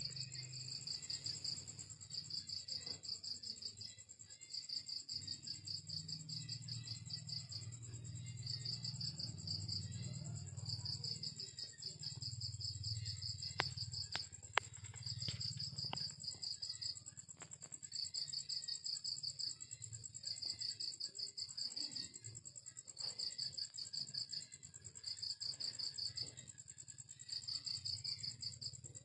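Crickets chirping in repeated trills a second or two long with short pauses between them, over a steady high-pitched whine. A few sharp clicks come about halfway through.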